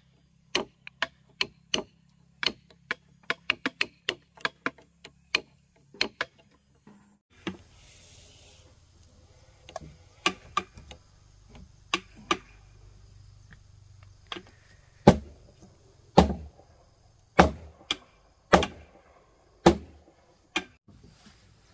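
Repeated sharp knocks of a tool striking timber, quick and uneven at first, then heavier blows about once a second in the second half, over a faint low hum.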